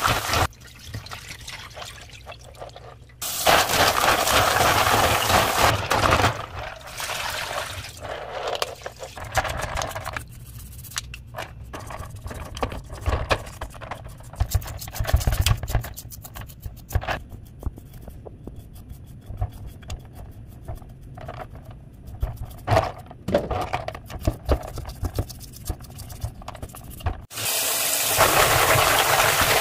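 Water running from a kitchen tap in a few separate spells, the longest near the start and again near the end. In between come knocks and clatter as food is handled and washed in the sink.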